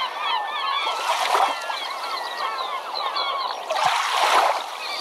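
A flock of birds calling over one another in many short squawking calls, with two louder swells of noise, about a second in and again near four seconds.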